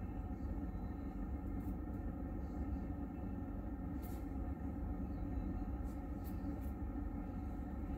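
Car engine idling steadily, a low hum heard from inside the cabin, with a few faint clicks.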